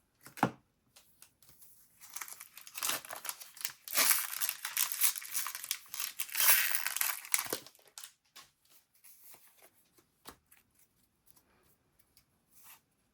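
Trading card booster pack wrapper crinkling and being torn open for about six seconds, followed by a few light ticks and rustles.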